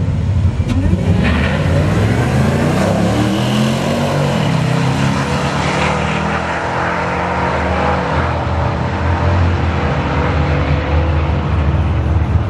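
Drag-strip car engines revving, their pitch rising and falling several times before settling into a steadier low running note in the second half.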